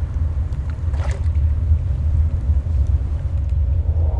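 Steady low rumble of wind over open sea water.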